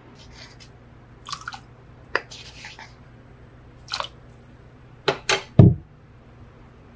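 Short wet knocks and splashes from a glass bowl of water in a stainless-steel sink as baking soda is stirred in. They come singly at first, then three loud ones in quick succession about five seconds in, the last a low thud.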